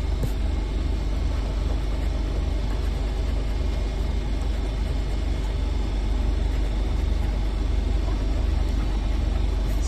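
A coin scratching the coating off a paper scratch-off lottery ticket, over a steady low hum.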